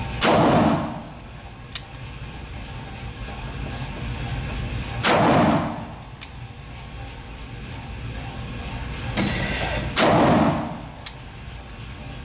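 Ruger GP100 Match Champion revolver firing 10mm Auto rounds: three single shots about five seconds apart, each with a long echo off the concrete walls of an indoor range.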